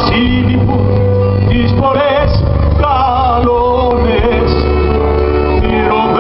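Live band music: sustained bass and chords under a lead melody line with vibrato.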